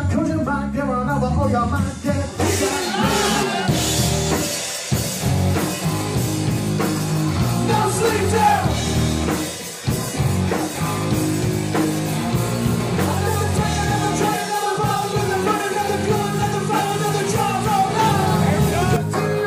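Live rock band playing loudly: electric guitars, bass and a drum kit, with a lead vocalist singing over them.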